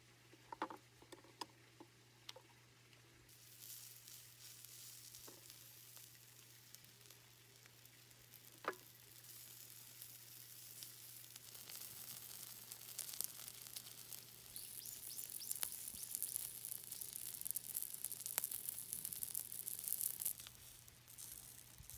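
Bacon-wrapped pieces of meat sizzling on a hot perforated steel griddle over charcoal, the sizzle building up and loudest a few seconds before the end. A few light metallic clicks of tongs against the griddle in the first couple of seconds, and one more about nine seconds in.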